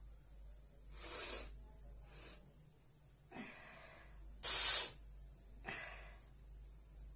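A woman's forceful breaths and sniffs through a nose irritated by red chilli powder, five in all. The loudest, about four and a half seconds in, is a short sharp sneeze.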